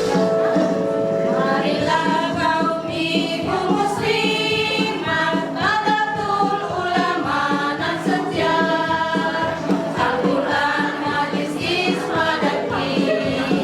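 A women's choir singing a song together.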